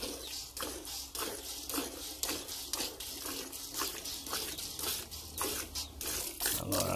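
A cow being milked by hand: milk squirting from the teats into a metal pail in a steady rhythm, about two squirts a second.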